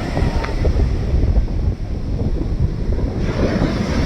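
Ocean surf washing, heavily overlaid by wind buffeting the microphone in uneven low gusts; the hiss of the surf comes up brighter about three seconds in.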